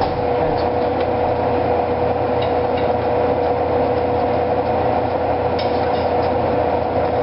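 A small electric motor in a kitchen appliance running steadily, a constant whirring hum at one unchanging pitch.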